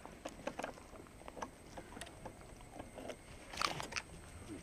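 Faint scuffs and rustles as a dog moves around a motorbike and walks on dirt ground, with one louder brushing rustle about three and a half seconds in.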